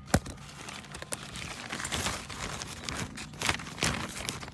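Hands handling rear drum brake parts: a sharp metallic click just after the start, then scattered clicks, scrapes and rustling.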